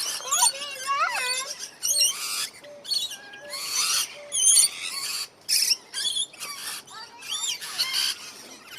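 Many aviary birds calling at once, overlapping: a steady run of short harsh screeches mixed with high whistled chirps and gliding calls.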